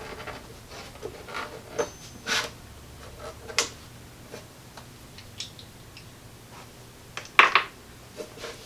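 Scattered clicks, knocks and light scrapes from handling a small tabletop tube radio and its chassis, with a louder cluster of knocks about seven and a half seconds in.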